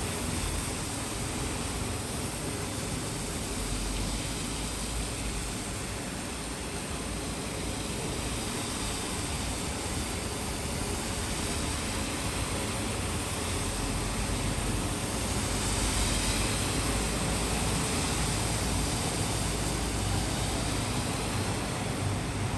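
Steady rain falling, an even hiss with a low rumble underneath. The rain swells a little louder about two-thirds of the way through.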